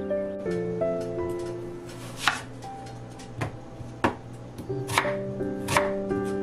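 Chef's knife slicing an onion on a wooden cutting board: about five sharp knife strokes hitting the board, starting about two seconds in, over soft background music.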